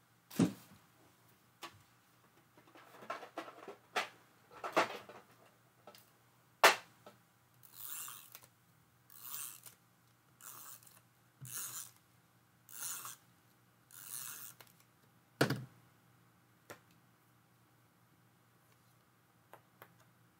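Permanent adhesive tape runner drawn across the back of a card piece in six short strokes, about one every second and a half, with paper handling and a few light knocks on the table before and after.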